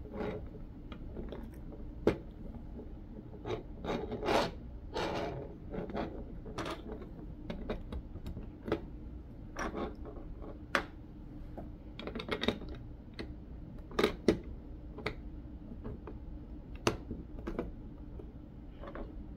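Plastic Lego bricks being handled and pressed onto one another: scattered light clicks and rustles, with sharp snaps about two seconds in, twice around fourteen seconds and again near seventeen seconds. A faint steady hum lies underneath.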